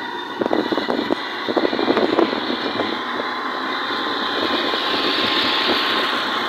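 A motorcycle riding at a steady speed, heard from aboard the bike: a steady engine drone mixed with road noise and an irregular crackle.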